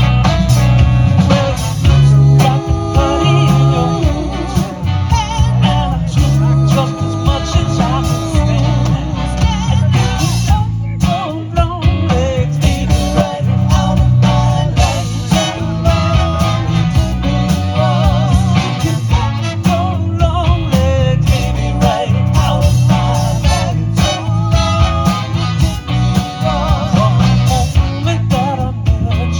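Band playing beach music: a singer over guitar, bass and drums with a steady beat.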